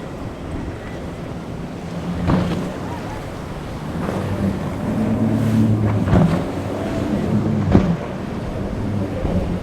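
A boat engine running through choppy inlet waves, with a steady hum that strengthens about halfway through. Several sharp slaps of water against the hull stand out, the loudest near the end. Wind buffets the microphone throughout.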